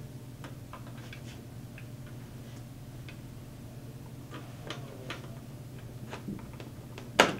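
Light, scattered clicks and ticks of a thin wire planet rod and plastic parts being handled and fitted into a ring of a Geo-Safari motorized solar system model, with one sharper click near the end.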